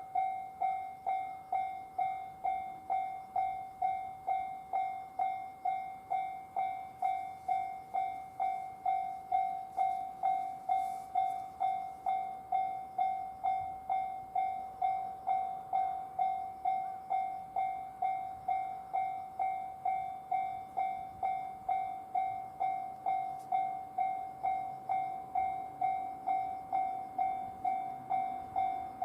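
Japanese railway level-crossing warning bell ringing steadily at about two strokes a second, each stroke a ringing tone that dies away before the next. A faint low rumble builds near the end.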